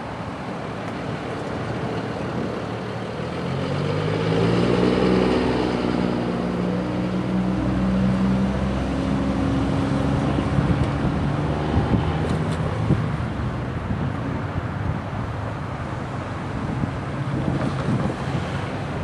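Road traffic passing close by: cars and SUVs driving past with tyre noise. One engine hum swells and drops slightly in pitch as it goes by, and a few short knocks follow about two-thirds of the way through.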